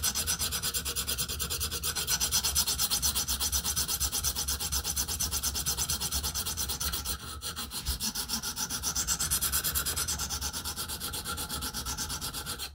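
A 100-grit sharpening stone on a KME guided sharpening system is stroked quickly back and forth along an M390 steel knife edge, a steady scraping rub at about five or six strokes a second with a short break around seven seconds in. It is grinding out a chip in the edge.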